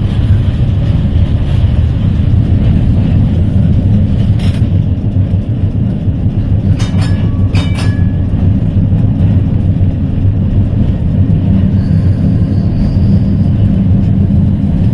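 Heritage electric tram running along the line, heard from on board: a steady low rumble of wheels on rails. A sharp click comes about four and a half seconds in, and a quick run of clicks about seven seconds in.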